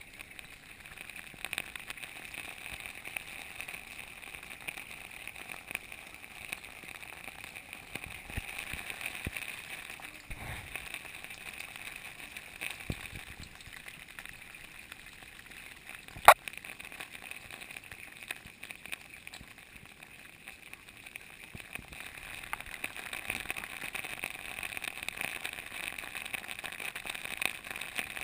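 Bath water sloshing faintly as a baby moves in a foam-filled baby tub, over a steady hiss. One sharp click about sixteen seconds in.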